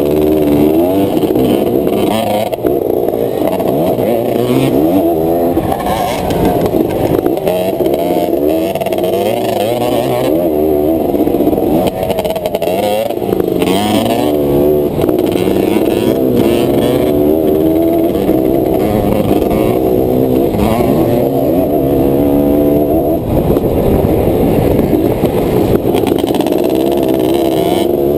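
Honda 250R all-terrain vehicle's two-stroke single-cylinder engine heard from on board, revving up and dropping back again and again as it is ridden hard around a dirt track.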